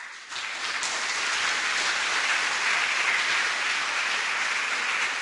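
Audience applauding, a dense steady clatter of many hands clapping that swells within a moment to a level hold.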